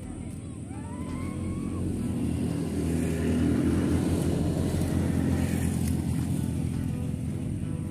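Motorcycle passing by, its engine growing louder to a peak about three to five seconds in and then easing off.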